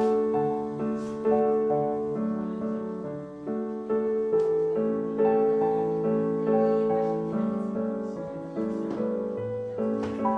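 Background music: gentle piano playing a slow melody over held chords, one new note or chord about every second.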